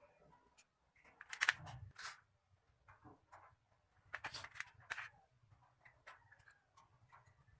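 Handling clicks and knocks as a plastic battery holder and multimeter test leads are moved about and set down on a tabletop, in two short clusters about a second in and about four seconds in, with scattered small ticks between.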